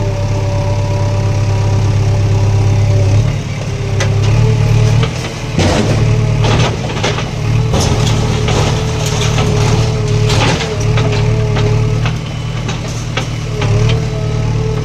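Heavy machine's diesel engine running steadily with a whine on top, and from about four seconds in repeated cracks and knocks of masonry being broken in demolition.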